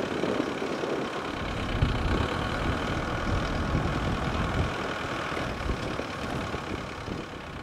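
Jet engine noise of an Airbus A330 climbing away after takeoff: a steady rumbling roar that eases off slightly near the end as the aircraft recedes.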